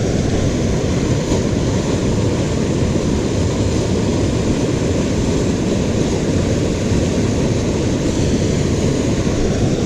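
Steady rush of a fast-flowing river running high.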